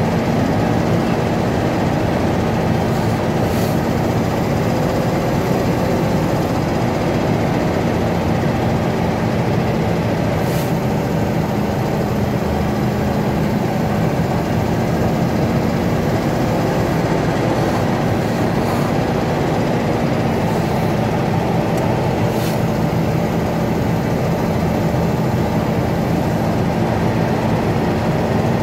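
Heavy diesel truck heard from inside the cab, loaded with a stone block and rolling down a steep mountain grade: a steady engine drone with road noise.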